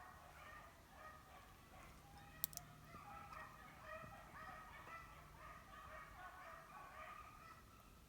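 A pack of hunting dogs baying faintly on a rabbit's trail: many short, overlapping cries, with one sharp click about two and a half seconds in.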